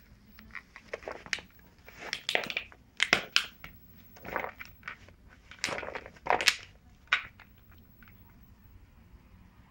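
A Labrador mix chewing a plastic water bottle toy: the plastic crunches and crackles in irregular bursts, stopping about seven seconds in.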